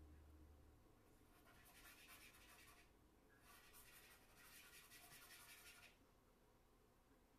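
Charcoal scratching on paper in shading strokes, in two spells of faint scratching: one starting about a second in and one from about three and a half seconds, each lasting about two seconds. A faint low hum stops within the first second.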